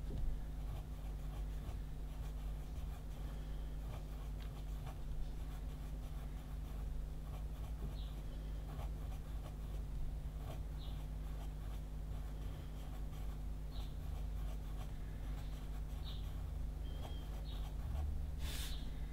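Pencil scratching on paper in many short shading strokes, with a louder scrape near the end, over a steady low hum.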